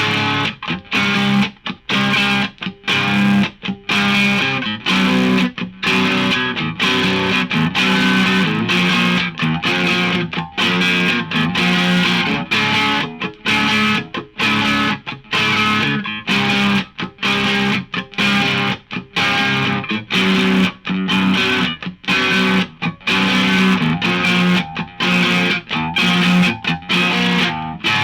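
Electric guitar played with overdrive, chords strummed and held, cut short by frequent brief stops.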